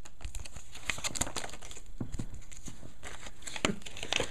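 Trading cards being handled and flipped through by hand, making a string of light, irregular taps and flicks.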